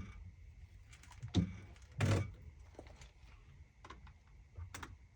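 A few dull knocks and thumps, the loudest and longest about two seconds in, with smaller ones near the end.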